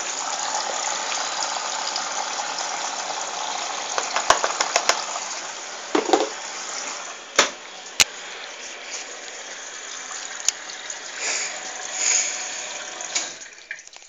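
AEG front-loading washing machine taking in water for the prewash: a steady rush of incoming water that gradually eases and stops about a second before the end. A few sharp clicks and knocks along the way.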